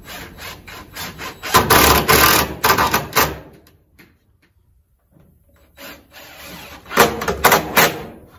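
Cordless drill driving screws into cedar boards: one run of about three seconds, louder in its second half, then a pause and a second run near the end.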